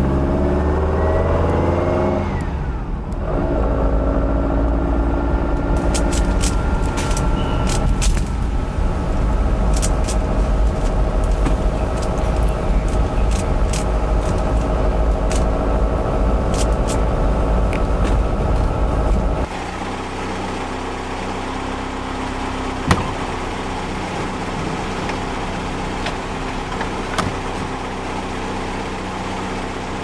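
1966 Volkswagen Beetle's air-cooled flat-four engine heard from inside the cabin while driving. It rises in pitch as the car accelerates, drops with a gear change a couple of seconds in, climbs again and then runs steadily. Near the end of the first twenty seconds it settles to a quieter, lower running.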